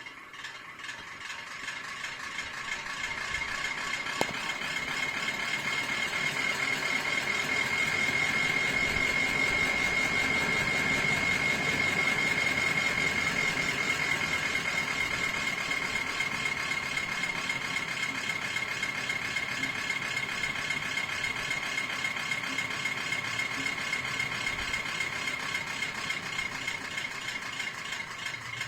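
Atomberg electric fan running with a steady high-pitched whine over a whirring noise, growing louder over the first several seconds and then holding. This is the abnormal running noise the owner complains of as the fan's sound issue.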